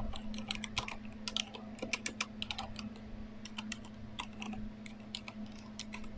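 Typing on a Corsair Strafe RGB mechanical keyboard with Cherry MX Silent switches, miked up close: rapid, irregular, soft key presses, the dampened switches keeping it nearly silent. A low steady hum runs underneath.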